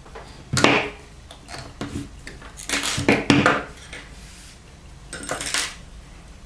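A few short scraping rustles from a needle and doubled thread being drawn through a tightly stuffed fabric toy body, with the fabric handled in between: one about half a second in, two close together around the middle, and one near the end.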